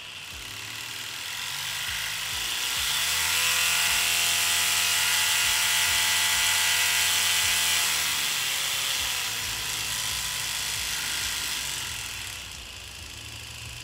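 Davidunion D400 reciprocating pen sander's small electric motor running, sped up by its dial with a rising whine over about three seconds, held steady at top speed, then dialled back down, its pitch falling from about eight seconds in.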